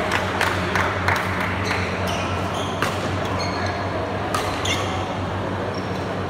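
Badminton players moving about the court between rallies: a few sharp squeaks and taps from shoes and rackets over a steady low hum of the hall.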